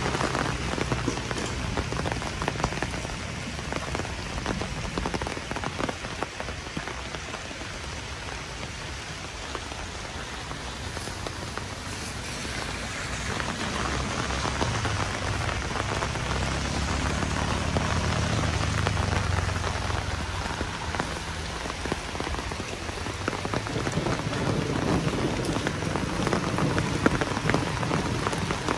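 Heavy rain falling steadily, thick with close drop impacts. A low rumble swells in the middle and eases off again.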